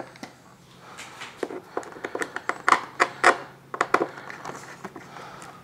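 Hands and a screwdriver working on a foam model jet's wing: a run of small clicks and light knocks, loudest about three seconds in.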